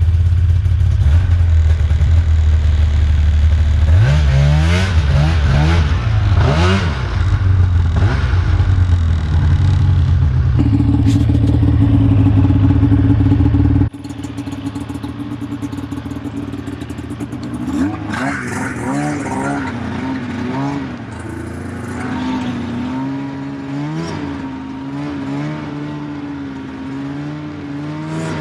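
Snowmobile engine running under way and revving, its pitch rising and falling over a heavy low rumble. About halfway through the sound drops abruptly to a quieter, steadier engine note.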